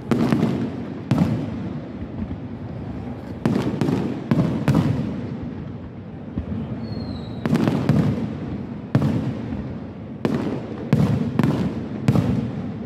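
Aerial firework shells bursting overhead, about a dozen sharp bangs at uneven intervals, sometimes two in quick succession. Each bang trails off in a low rumbling echo.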